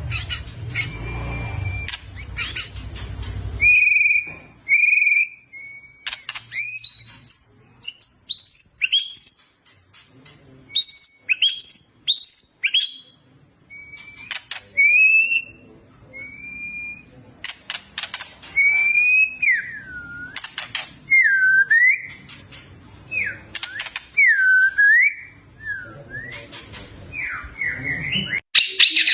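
A songbird singing a run of clear whistled notes, first short up- and down-slurred whistles, then longer notes that dip and rise again, mixed with sharp clicks.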